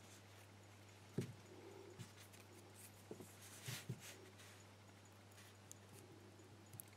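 Near silence over a steady low hum, broken by a few faint clicks, taps and light scrapes of a thin steel pick and a small metal lock cylinder being handled as springs and pins are worked out of the pin chambers; the sharpest tap comes about a second in.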